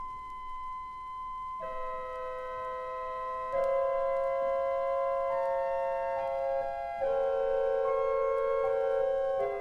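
Late-romantic 1902 Wilhelm Sauer pipe organ playing slow held chords. A single high note sounds alone, lower voices join about one and a half seconds in, and the chord swells louder near four seconds in, then shifts again about seven seconds in.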